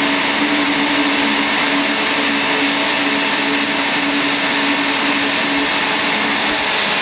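Steady jet whine and rush from a parked Boeing 777-281 at the gate, with a high whine over a low hum, then cuts off suddenly.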